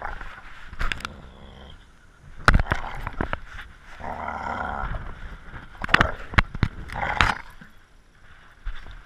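Knocks, clatter and rubbing of a GoPro hanging from a pitbull's collar as it plays tug with another dog over a rope toy. Sharp knocks come in clusters, with a stretch of rough rasping noise in the middle.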